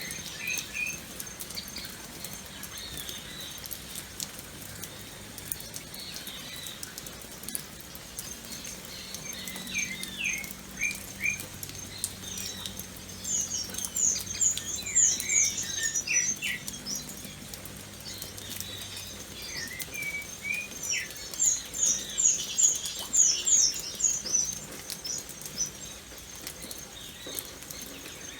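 Gentle rain pattering steadily, with birds calling over it in quick runs of short, high chirps that come in clusters and are loudest toward the middle and again later on.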